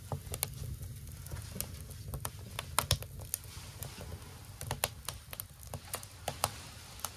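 Split firewood crackling and popping in an open wood-burning tent stove: irregular sharp pops, several a second at times, over a low steady rumble.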